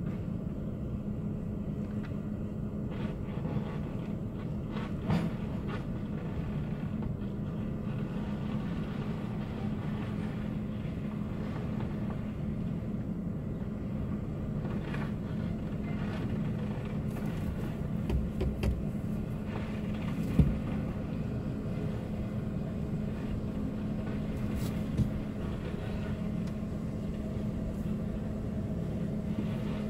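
Steady engine drone heard from inside a vehicle's cab, with a low steady hum and a few scattered knocks, the sharpest about 20 seconds in.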